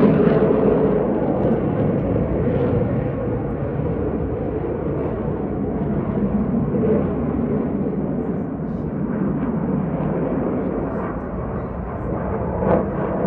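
Jet roar of two RAF Typhoon fighters' engines in flight, loudest at the start and slowly fading as they move away.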